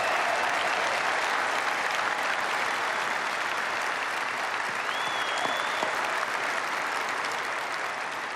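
Large audience in a convention hall applauding steadily, easing off slightly near the end.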